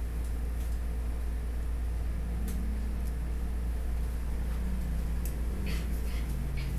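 A steady low hum, with a few faint scratchy ticks and a short rustle near the end, from a straight-razor shave at the neck and the tissue paper tucked at the collar being handled.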